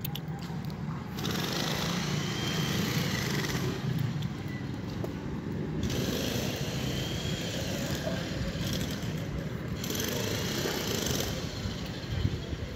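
Traffic noise: a steady engine rumble, with louder vehicle noise swelling up twice.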